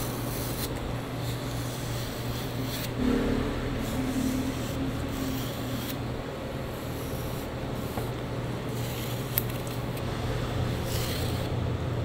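Multi-blade green onion shredder knife dragged again and again across raw pork belly skin, a repeated scraping rasp as it scores the skin, over a steady low hum.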